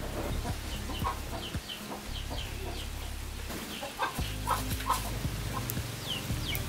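Chickens clucking in short bursts, most about four to five seconds in, with small high chirps scattered through, over a steady low rumble; a few sharp clicks near the end.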